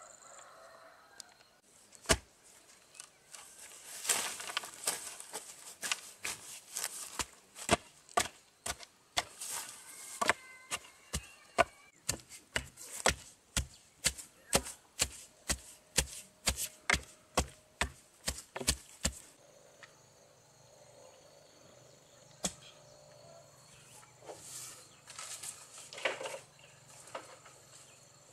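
A hand tool chopping, a long run of sharp strikes at about two a second, which stops a little over two-thirds of the way through. A faint steady low hum follows.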